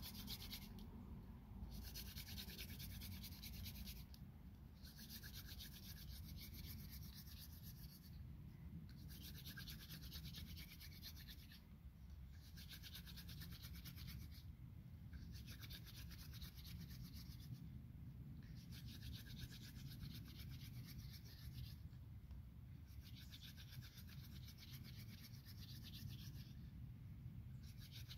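Hand drill friction fire: palms rubbing a dried mullein-stalk spindle back and forth as its tip grinds into a cedar hearth board, a faint dry rasping. It comes in runs of about three seconds with short breaks as the hands go back to the top of the spindle, a slow, steady pace that builds up wood dust in the notch.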